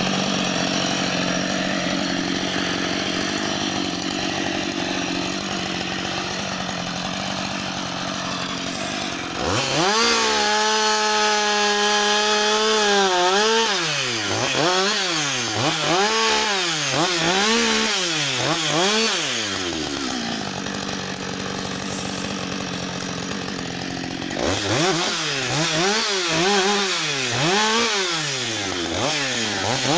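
Husqvarna 560 XP two-stroke chainsaw running steadily at low speed, then going to full throttle about nine seconds in. It then revs up and down about once a second while cutting branches off a fallen spruce. It drops back to a steady low run for a few seconds, then resumes the quick rev-and-cut pulses near the end.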